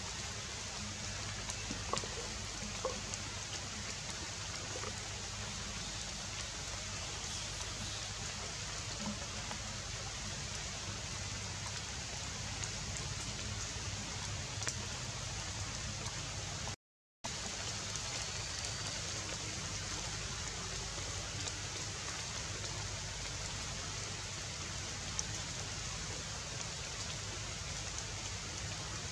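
Steady outdoor hiss of background noise, with a few faint ticks about two and three seconds in, and a brief cut to silence a little past halfway.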